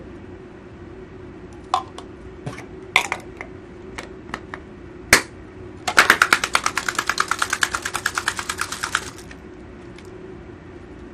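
Hard-boiled egg and water being shaken inside a capped plastic egg-peeler cup: a fast, even rattle of about ten knocks a second for about three seconds, the egg knocking against the walls to crack its shell loose. Before it come a few light plastic clicks and a sharp snap as the cap is pressed on.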